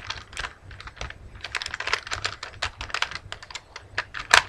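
Plastic 3x3 Rubik's Cube being turned quickly by hand: fast, irregular clicking of its layers rotating, with one louder clack near the end.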